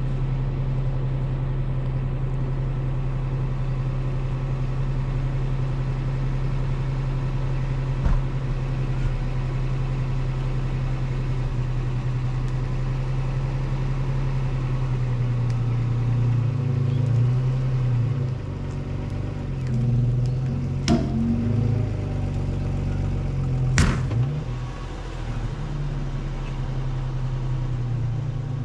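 Four-wheel-drive vehicle's engine running steadily, then revving up and down under load from just past halfway as it pulls on a rope tied to a fallen tree. Sharp cracks come once early and twice near the end.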